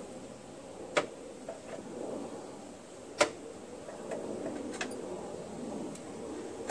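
A few sharp metal clicks as the transmission drive cable and linkage of a Honda HRZ216 mower is pulled and let go by hand, the loudest about three seconds in, with light handling and rubbing between them.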